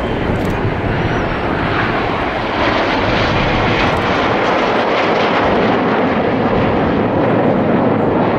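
Engine noise of an airplane flying past, loud and steady, growing a little louder about two and a half seconds in.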